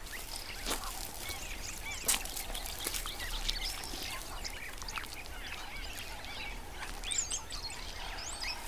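Many small birds chirping and twittering in a steady background chorus, with a couple of sharp clicks in the first two seconds.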